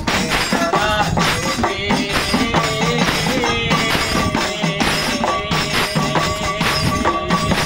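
A man singing an Assamese folk song, holding wavering notes, over a steady run of quick hand-percussion strokes.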